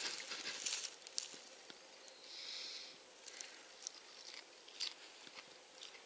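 Faint crisp bites and chewing of a raw ground elder (goutweed) shoot, heard as scattered small crunches and clicks. A rustle of the leafy stem being handled comes at the start, and a short soft hiss about halfway through.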